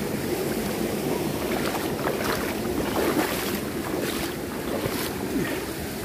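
Water sloshing and splashing in a shallow stream as a person wades through it, with short splashes scattered through the middle.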